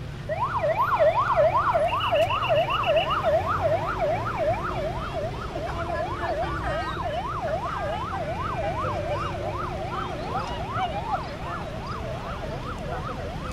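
Emergency vehicle siren in fast yelp mode, sweeping up and down about three times a second. A brief higher rapid beeping comes in about two seconds in. Under it all is a steady low rumble.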